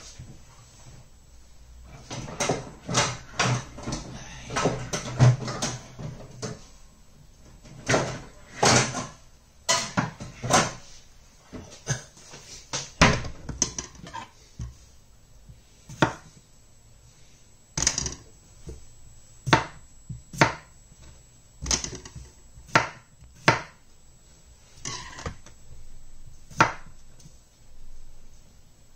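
Kitchen knocking and clatter, then a knife cutting peeled potatoes and knocking on a wooden cutting board, about one stroke a second in the second half.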